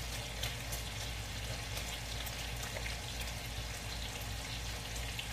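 Kielbasa pieces sizzling in a frying pan as they brown: a steady hiss with irregular small crackles, over a low steady hum.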